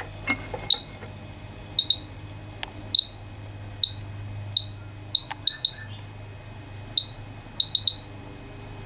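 Geiger counter clicking at random intervals, about a dozen short chirpy clicks, as it detects radiation from uranium glass; the slow count rate is a pretty low dose. A steady low hum sits underneath.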